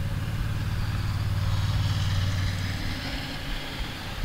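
Low, steady engine hum that fades away about three seconds in.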